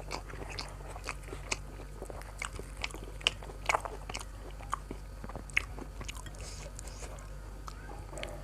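A person chewing and biting into crispy fried food, with irregular sharp crunches, the loudest clustered around the middle, over a steady low hum.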